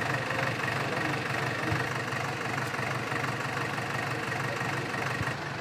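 JCB backhoe loader's diesel engine running steadily, with some voices from people gathered nearby.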